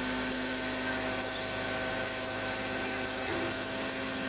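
Heavy-equipment diesel engine running steadily at constant speed, a continuous mechanical hum with a few steady tones, while the crane lifts the excavator.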